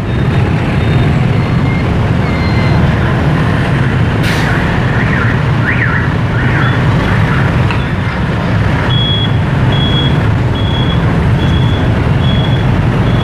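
Steady road-traffic and engine rumble. From about nine seconds in, a high electronic beep repeats a little faster than once a second.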